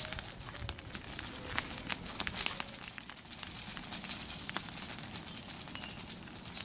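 Bonfire burning, with irregular sharp crackles and pops from the burning wood.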